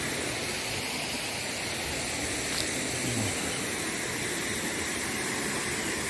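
Steady rushing of a small waterfall spilling over a rock ledge into a river pool, heard from the slope above.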